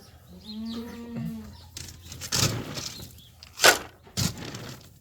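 A farm animal's call lasting about a second, followed by several sharp, noisy clattering knocks, the loudest a little past halfway.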